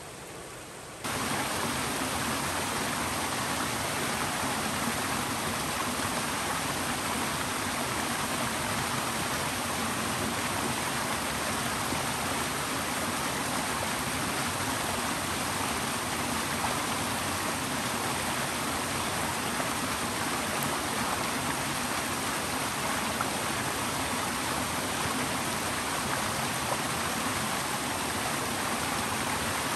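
Mountain creek rushing, a steady, even sound of flowing water that cuts in abruptly about a second in.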